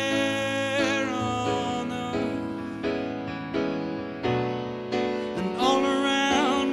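Background music: a slow piano-led song, with notes struck and left to fade, and a singing voice holding long notes with vibrato about a second in and again near the end.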